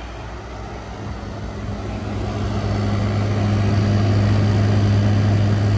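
2023 General Electric 5,000 BTU window air conditioner running on high cool: a steady rush of fan air over a low compressor hum. It grows louder during the first three seconds and then holds steady.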